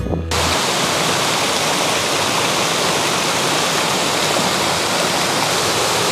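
Rushing water of a rocky mountain stream and waterfall: a loud, steady, even rush that starts suddenly just after the start, as music cuts off.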